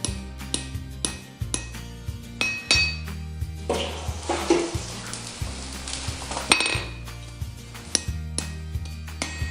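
Hammer blows on hot steel over the anvil, about two a second with a metallic ring, as a bar is punched through with a hot punch. A hissing noise runs for about three seconds in the middle, and background music plays underneath.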